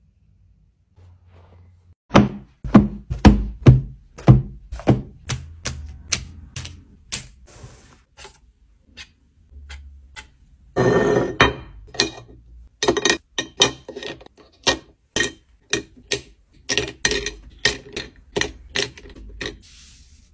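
Stationery being handled close up: a long run of sharp plastic clicks and knocks, two or three a second, as pens are set down one after another, with a short rushing scrape about eleven seconds in.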